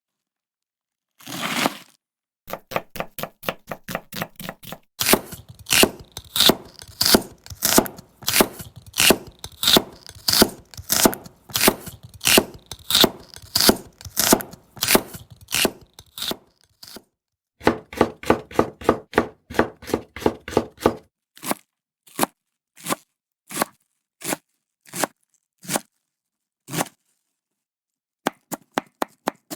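Japanese kitchen knife (houchou) chopping food on a cutting board in a steady rhythm of sharp knocks, about two to three a second. A little past the middle the strokes come quicker, then slow to single cuts about a second apart, with a short pause near the end.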